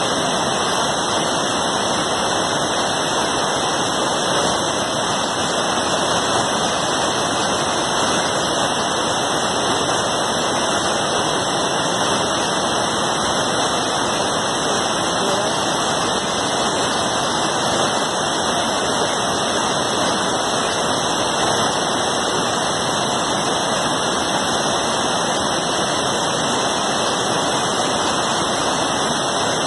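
Water released through a dam's opened shutters rushing down a rocky spillway cascade: a steady, even rush of white water.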